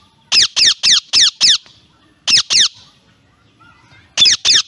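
Parrot screeching: short, shrill squawks, each falling in pitch, in three quick bursts of five, two and two calls.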